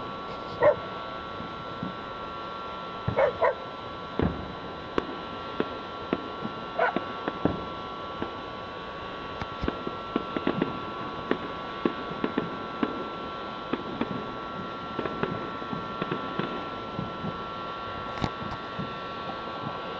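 Distant fireworks going off about 2 km away: a string of short pops and dull bangs, thickest from about ten seconds on. A dog barks several times in the first seven seconds, the loudest sound being a bark just under a second in.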